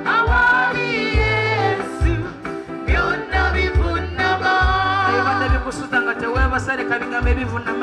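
Live Luganda gospel song: a woman sings lead into a microphone with a wavering vibrato, over a band with a bass line and kick drum.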